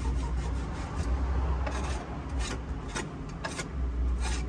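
Knife blade scraping dried chicken droppings off a wooden roosting bar: a series of short, rasping strokes, several a second.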